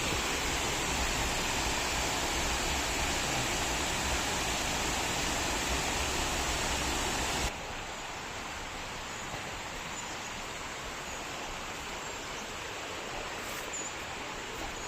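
Steady rush of falling water from a waterfall. About halfway through it cuts suddenly to a softer, duller sound of running water.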